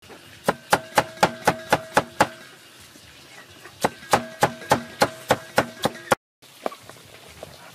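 Cleaver chopping diced tomatoes on a round wooden chopping block: two runs of quick, even strikes, about four a second, with a pause of about a second and a half between them. The chopping cuts off about six seconds in.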